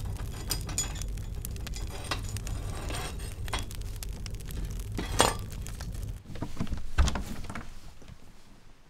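Wood-burning stove with its hob open: the fire inside gives a steady low roar and crackles, with clinks and sharp metal knocks from the stove's hob rings, the loudest about five and seven seconds in. The low roar drops away about six seconds in.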